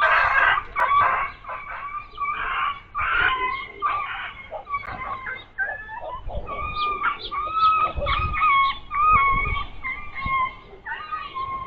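An injured dog, just hit by a car, yelping and crying in pain: a run of high, repeated cries that turn into longer drawn-out whimpering wails about halfway through.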